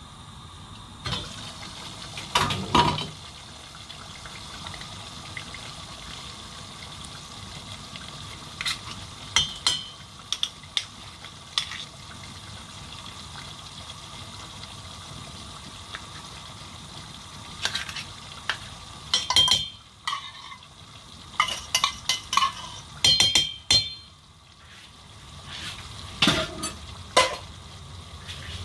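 Metal kitchen utensils clinking and scraping in short clusters, a fork against a metal bowl and pots, over a steady hiss of food cooking in a pot on the stove.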